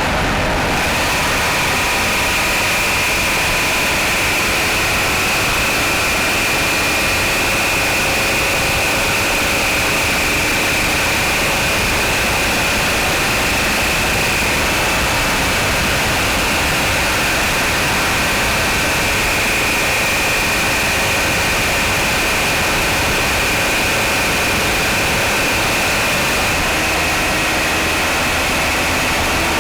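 Mitsubishi 4G63 inline-four engine idling steadily after a cold start, with a steady high-pitched whine over the running. The owner is recording it for a knocking noise heard on cold start.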